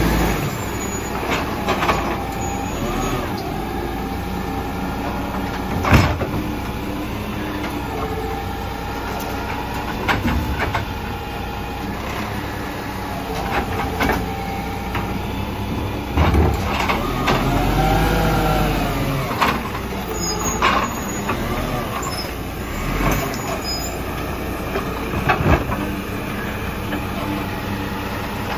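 Volvo garbage truck with a Superior Pak automated side-loader body: the diesel engine runs with a hydraulic whine as the arm grips a wheelie bin and lifts it up to tip, with clanks and knocks from the arm and bins, the loudest about six seconds in. Around the middle, a whine rises and falls.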